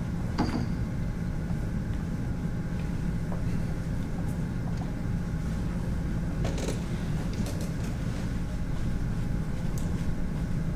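Steady low hum of room tone with a few faint clicks and knocks.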